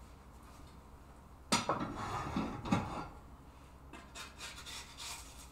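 A frying pan clanks sharply about a second and a half in, followed by a spatula scraping and rubbing against the pan as the omelette is worked loose, lighter scraping near the end.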